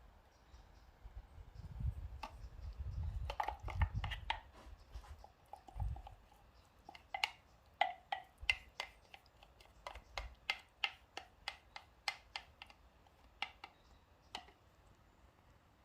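Kitchen handling sounds: a few low thumps in the first six seconds, then a run of light, sharp clicking taps, about two a second, that stops a little before the end.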